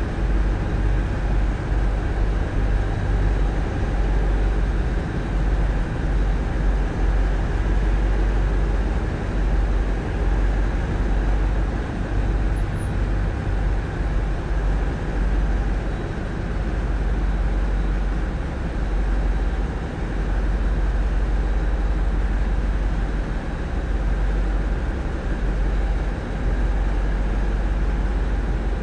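Tugboat's diesel engines, which drive Voith Schneider propellers, running steadily: a low, even rumble heard from the wheelhouse.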